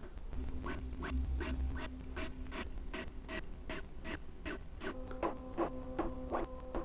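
Bambu Lab A1 3D printer's stepper motors and toolhead running the motor noise cancellation calibration: the carriage shuttles along the gantry rail with a regular scraping stroke about two and a half times a second, over steady motor tones that change to a higher set about five seconds in.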